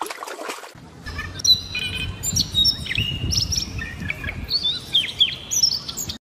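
Songbirds chirping and singing: a quick, busy run of short high whistled notes and sharp downward slurs, some overlapping, after a brief rush of noise at the very start.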